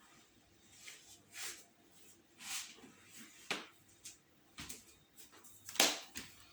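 A string of short, irregular rustles and soft knocks, about seven in all, the sharpest about three and a half seconds in and near the end: the sounds of someone moving and handling things close to the microphone.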